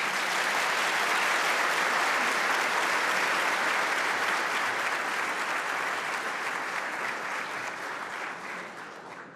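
A large audience applauding, a dense, steady clapping that fades away in the last second or so.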